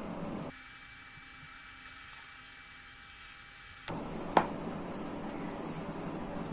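Faint room noise that drops abruptly to a quieter background for about three seconds and then returns, followed by a single sharp knock about four and a half seconds in.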